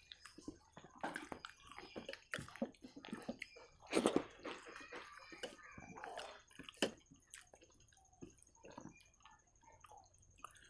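Close-up wet eating sounds: chewing and squishy, sticky sounds of rice mixed with dal by hand, in irregular short clicks and smacks, loudest about four seconds in and again near seven seconds.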